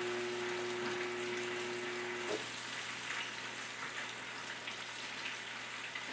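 Venison pieces frying in hot oil in a pan: a steady sizzle with small crackles. A faint steady hum underneath cuts out a little over two seconds in.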